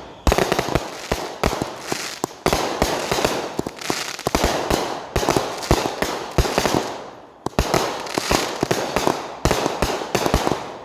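Consumer fireworks cake firing: a rapid run of sharp bangs with crackling bursts between them, easing for a moment about seven seconds in before picking up again.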